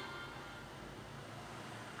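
Gap between two phone ringtones: the last notes of one ringtone fade out near the start, leaving only faint hiss and low hum.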